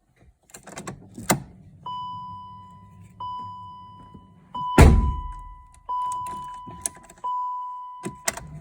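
BMW M3 CSL's warning gong chiming five times, about every 1.3 seconds, each chime fading away. A loud heavy thunk comes near the middle, with scattered clicks around it.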